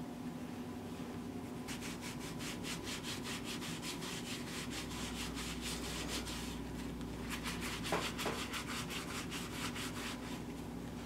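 A cloth rubbed fast back and forth along the edge of a leather wallet, about four strokes a second, burnishing the edge. The rubbing starts about two seconds in and pauses briefly around the middle.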